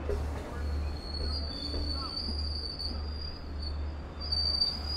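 Long Island Rail Road DM30AC diesel locomotives running with a steady low rumble. A thin, steady high-pitched tone comes in about a second in and holds.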